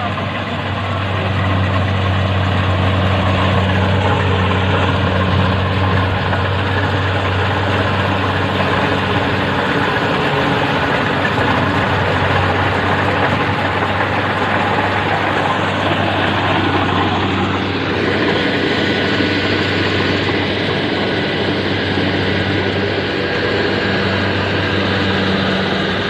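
Kubota rice combine harvester running under load as it cuts and threshes rice. A steady low diesel engine hum at first gives way to fuller whirring machinery noise as it comes up close.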